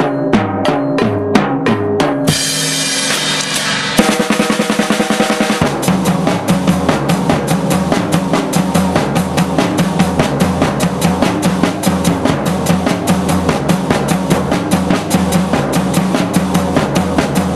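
Drum kits and percussion playing a busy, fast rhythm with bass drum, snare and rimshots. About two seconds in a cymbal wash rings for a couple of seconds, then from about four seconds the playing turns to dense, rapid hits.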